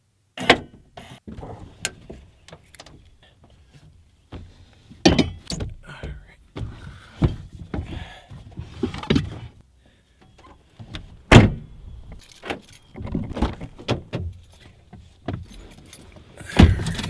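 Irregular knocks, clunks and rattles of things being handled and moved, with louder sharp knocks about five seconds in, about eleven seconds in and near the end.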